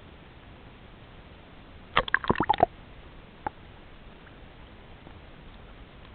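A quick run of six or so sharp knocks in under a second, then one more knock about a second later, over a steady hiss.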